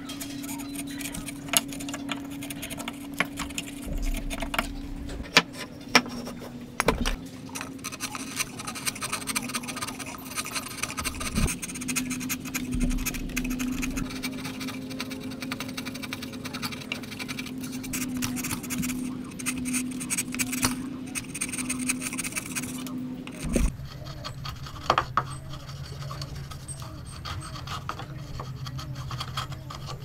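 Hand chisel paring and scraping wood out of a slot in a timber block: scratchy cutting strokes with sharp clicks and taps. A steady low hum runs underneath and drops lower past two-thirds of the way through.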